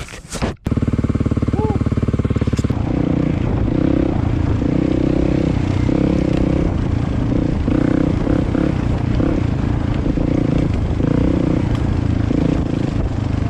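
Dirt bike engine, a Kawasaki KLX250 single-cylinder four-stroke, running as the bike is ridden, revs rising and falling with the throttle. It starts abruptly just under a second in.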